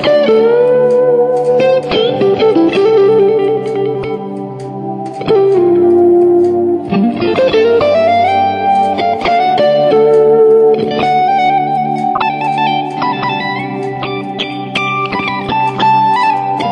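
Background music led by guitar, with long held notes that slide down in pitch a few times.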